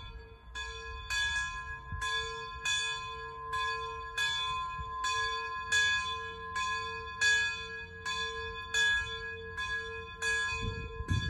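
A bell struck over and over at an even pace, about one and a half strokes a second, each stroke ringing on into the next.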